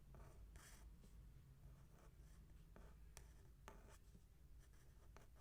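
Faint handwriting: a pen scratching short strokes on paper, with a couple of sharper taps about three seconds in.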